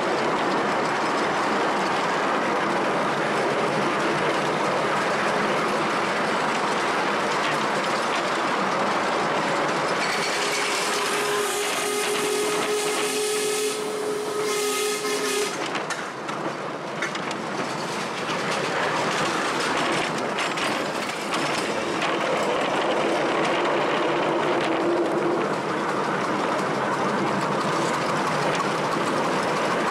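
Miniature ride-on steam train running along its track, with steady wheel-on-rail running noise. Near the middle the locomotive's steam whistle sounds one long steady note for about five seconds, and a fainter, shorter whistle note follows later.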